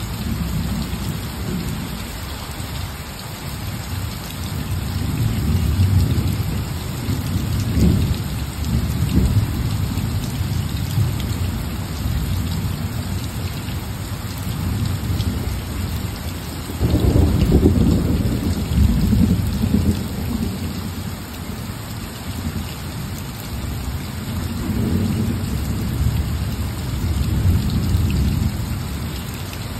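Steady rain with rolling thunder rumbling low throughout, swelling and fading. A louder roll of thunder starts suddenly about seventeen seconds in.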